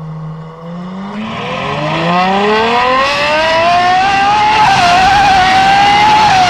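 Ferrari 812 Superfast's naturally aspirated 6.5-litre V12, breathing through a Secret Apple exhaust, accelerating hard: after a steady note the revs climb steeply to a high pitch, with a quick upshift about four and a half seconds in and another near the end.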